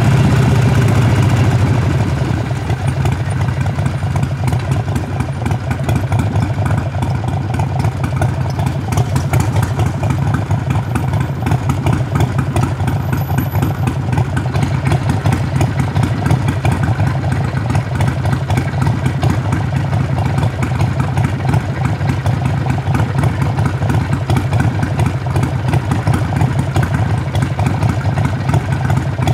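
Harley-Davidson Sportster Forty-Eight's air-cooled 1200 cc V-twin heard at the exhaust, louder for the first two seconds, then dropping back to a steady, even beat.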